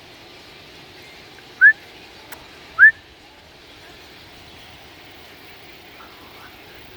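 Two short, loud, rising whistles a little over a second apart, over a steady outdoor background hum.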